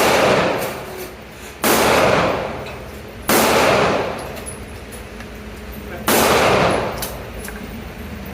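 Four single shots from an Aero Precision EPC 9, a 9mm AR-style carbine, fired at an unhurried pace about a second and a half apart, then a longer pause before the last. Each shot has a long echoing tail.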